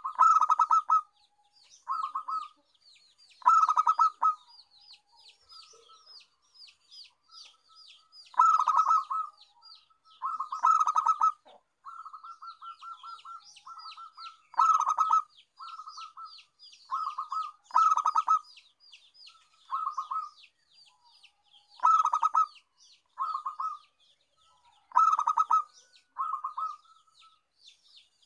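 Zebra dove (perkutut) cooing: short runs of rapid, trilling coos repeated every second or two, with louder phrases every few seconds. Behind them runs a constant stream of fast, high, falling chirps from another small bird.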